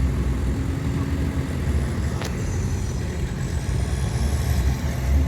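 Diesel engines of heavy earthmoving machinery running with a steady low rumble, with one short sharp click about two seconds in.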